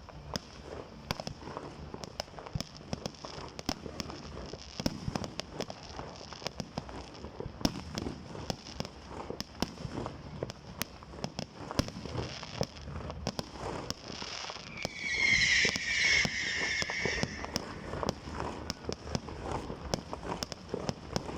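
Fireworks going off: a steady stream of sharp pops and crackles. About three-quarters of the way in, a loud, high, wavering tone lasts about two seconds.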